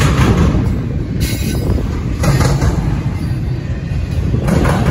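Double-stack intermodal freight train's container well cars rolling past: a steady low rumble of steel wheels on rail, with a few brief louder surges.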